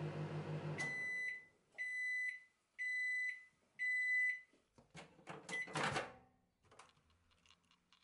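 Microwave oven running with a pulsing hum that cuts off just under a second in, followed by four beeps about a second apart signalling the end of the cycle. Then a clatter of clicks and knocks as the door latch is released and the door opened.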